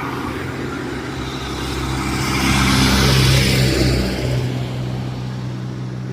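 A motor vehicle passing close by on the road, its engine and tyre noise growing louder to a peak about three seconds in and then fading away.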